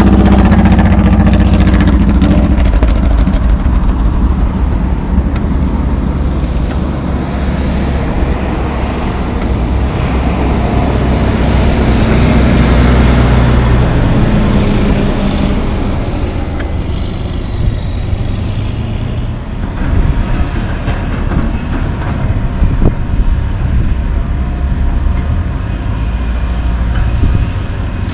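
Heavy diesel trucks and street traffic running with a steady low rumble. A tandem-axle dump truck drives past, loudest about halfway through. In the last several seconds, scattered sharp knocks and clanks sound over the engine noise.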